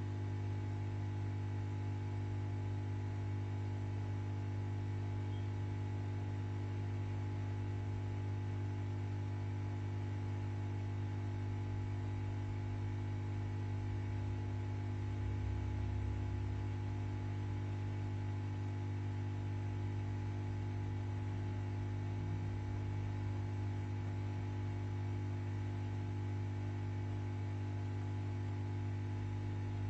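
Steady electrical mains hum: a low, even buzzing tone with overtones, unchanging in level.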